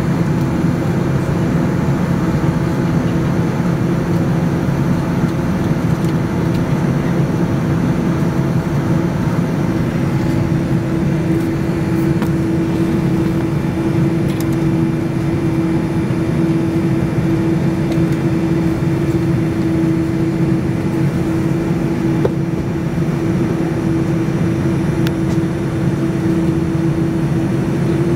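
Cabin noise inside a Boeing 787-9 taxiing: the engines' steady rumble with a steady hum that grows a little stronger midway.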